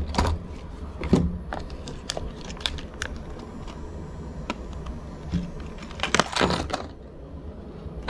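Handling and opening the hard plastic clamshell package of a Kwikset deadbolt, with the metal lock parts and keys inside clinking and rattling. It is a string of scattered clicks and rattles, with a louder burst of rattling about six seconds in.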